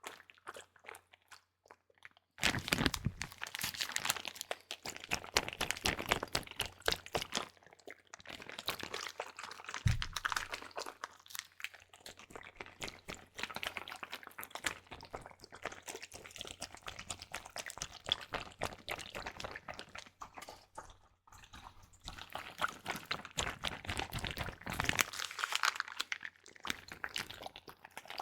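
Water sealed in a double-layered Ziploc bag being squeezed and handled close to the microphone: dense crinkling and crackling of the plastic with some liquid squishing. It starts about two seconds in, with a single low knock about ten seconds in.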